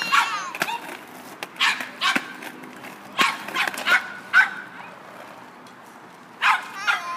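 Dog barking over and over, short high-pitched barks in quick groups of two to four, with a pause about five to six seconds in.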